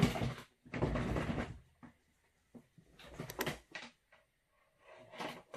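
Rustling and knocking of things being handled and moved about, in four short bursts with quiet gaps between them.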